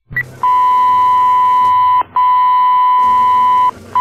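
Fire dispatch radio alert tone: a short higher beep, then a loud, steady single-pitch tone held for about a second and a half at a time, broken by brief gaps twice. It is the alerting that comes before a dispatcher announces a call.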